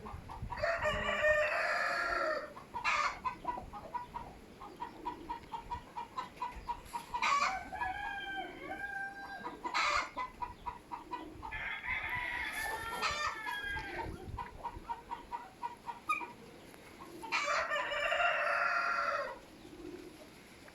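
A rooster crowing four times, with quick repeated chicken clucking in between.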